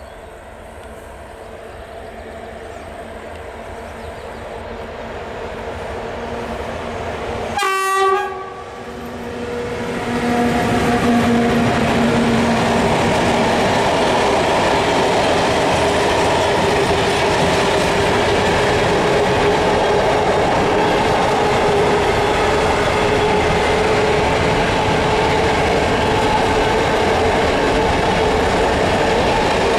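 ET22 electric locomotive hauling a container freight train, approaching and growing steadily louder. It sounds its horn briefly about eight seconds in as it passes. After that the loaded container wagons roll past in a steady, loud rumble.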